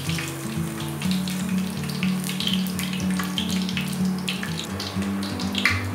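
Hot oil sizzling with irregular crackles as golden-fried paneer cubes are lifted out on a wire skimmer and drained over the pot, over background music with a low, stepping melody.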